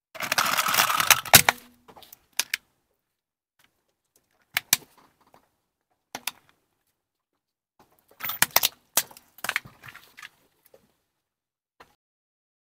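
Hard plastic toy airplanes cracking and crunching under a slowly rolling car tyre: a dense crackle at the start, then scattered sharp snaps and clicks as the parts break.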